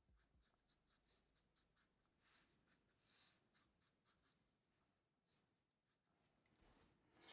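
Faint scratching of a felt-tip marker on paper, drawn in many quick short strokes, with two slightly longer strokes about two and three seconds in.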